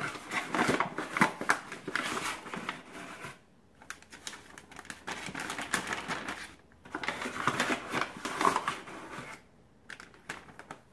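Plastic zip-top bag crinkling and rustling as it is handled and flour is spooned into it, in three bouts with short pauses between.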